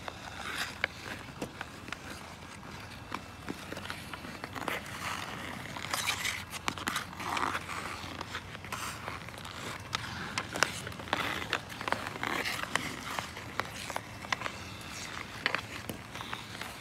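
Hockey skate blades scraping and carving across ice, with repeated sharp clacks of hockey sticks striking the puck and the ice.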